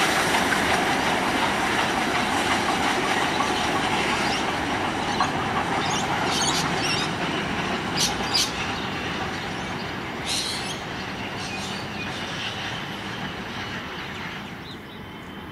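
K class 2-8-0 steam locomotive K190 and its heritage carriages running along the track, a steady rumble of wheels and exhaust that fades as the train draws away. A few brief high-pitched bursts come over it in the middle.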